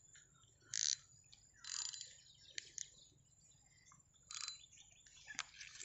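Faint, scattered rustles and a few sharp clicks from handling a spinning rod and reel, with gloved hands gripping the rod.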